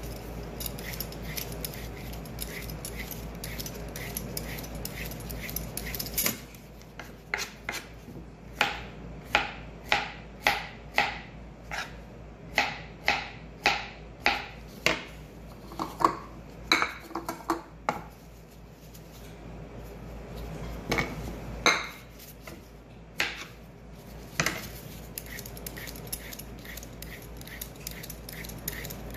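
A hand peeler scraping the skin off a zucchini in quick repeated strokes, about two a second. About seven seconds in this gives way to a knife cutting through vegetables onto a cutting board: sharp knocks, one or two a second for about ten seconds, with a few more a little later. Near the end the peeling strokes return.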